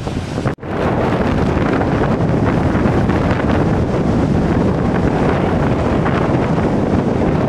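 Storm wind buffeting the microphone over the rush of breaking surf, with a momentary dropout about half a second in.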